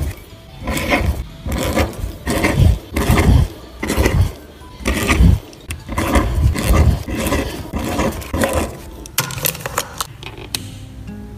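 A pen scratching across lined paper as words are handwritten, in short irregular strokes about two a second that thin out near the end.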